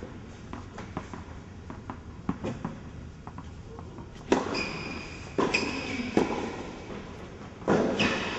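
Tennis ball strikes and bounces in a large hall: light taps in the first half, then four sharp, loud hits in the second half.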